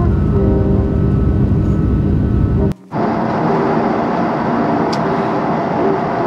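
Steady vehicle noise: a loud low rumble that stops abruptly about three seconds in, then a steady, brighter rushing noise.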